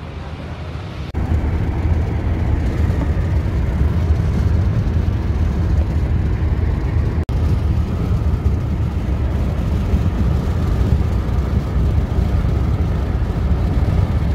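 Road traffic noise: a loud, steady low rumble of cars on a highway, with a brief break about seven seconds in.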